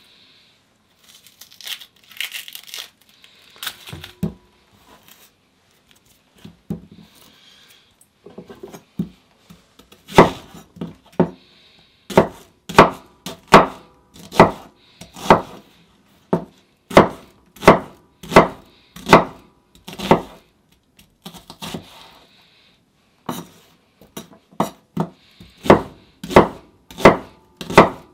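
Dry papery vegetable skins crinkling as they are peeled. About ten seconds in, a large knife starts chopping an onion on a wooden cutting board, with even strokes about one and a half a second. The chopping pauses briefly and then resumes near the end.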